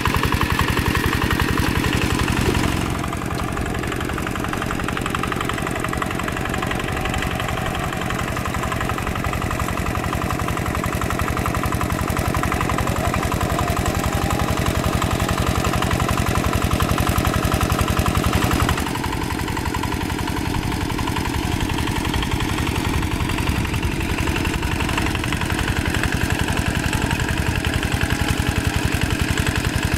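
Single-cylinder diesel engine of a two-wheel hand tractor running steadily as it pulls its cage wheels through paddy mud. The level drops abruptly about three seconds in and again around nineteen seconds.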